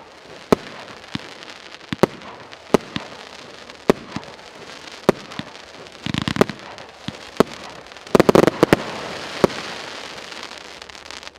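200-shot, 1-inch firework battery (cake) firing: sharp bangs every half second to a second over a steady crackling hiss of the stars. There is a quick cluster of bangs about six seconds in and a louder, denser flurry about two seconds later.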